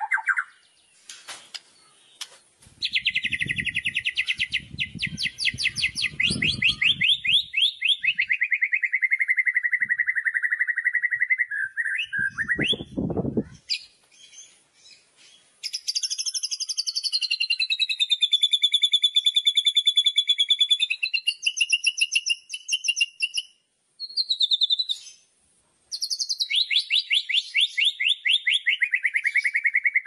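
White-rumped shama singing its loud 'kretekan', fast rattling trills. A long run slides down in pitch, then comes a pulsing phrase held at a steady pitch, and another falling run near the end, with short pauses between. A brief low rumble sounds partway through the first run and again just before the pause.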